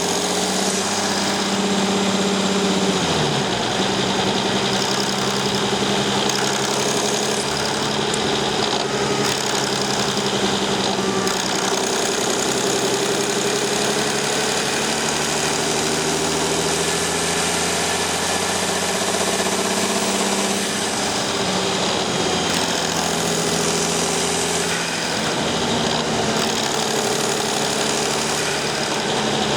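Mercedes Sprinter 219 CDI's V6 diesel engine running hot, its pitch dropping about three seconds in as the revs fall. It carries the odd noise the owner hears after accelerating at low revs, which he first took for the turbocharger.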